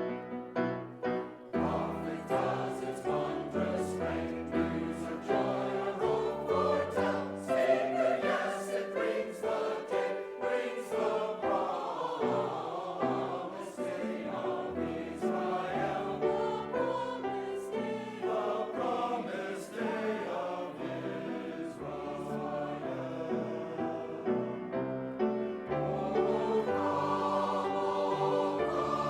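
A choir singing with piano accompaniment.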